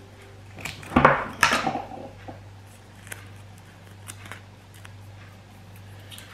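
Scissors cutting masking tape: a few short, sharp snips and rasps about a second in, then only faint taps and rustles of the cut strip being handled, over a low steady hum.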